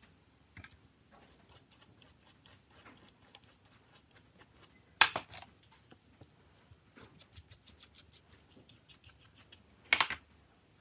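Small toothbrush scrubbing the metal-framed LCD display module of a Nokia C2-01 in quick short strokes, about six scratches a second, with two louder sharp clicks about halfway through and near the end.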